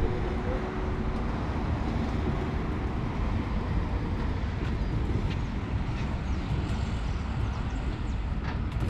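Steady low rumble of road traffic from a nearby city avenue, with no distinct events standing out.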